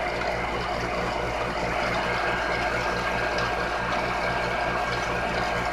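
Pacific Hydrostar 1 HP electric well water pump running steadily after priming, its motor giving an even hum.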